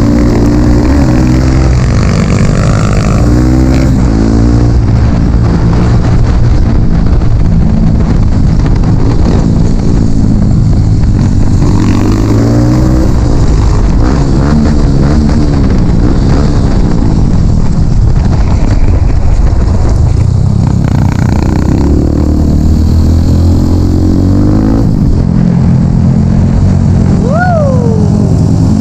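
Dirt bike engine running under constantly changing throttle, its pitch rising and falling as it revs up and eases off. A short falling whistle-like tone is heard near the end.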